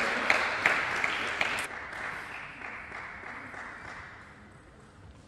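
Spectators applauding, the applause dying away over about four seconds with a few last separate claps.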